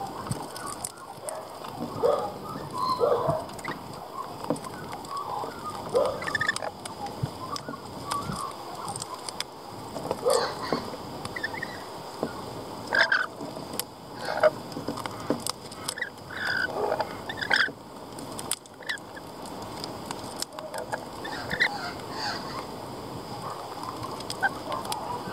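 Rainbow lorikeets feeding at close range, giving short, scratchy chattering calls at irregular intervals. Sharp taps come now and then as they peck at the seed on the wooden tray.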